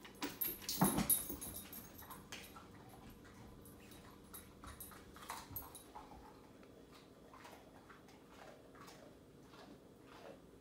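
A dog moving about on a hardwood floor, its nails clicking and knocking for the first second or so, then a string of faint, soft clicks as it lies chewing a treat.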